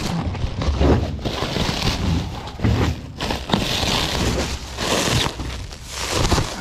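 Plastic stretch wrap crinkling and rustling as it is pulled and peeled off a pallet of bagged mulch, in uneven loud crackles.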